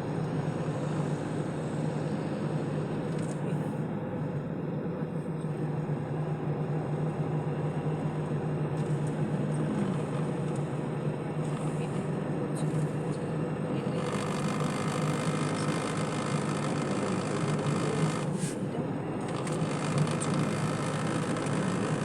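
Car engine and road noise heard inside the cabin, a steady low hum as the car climbs a winding hill road. About two-thirds of the way through, a brighter rushing hiss joins in.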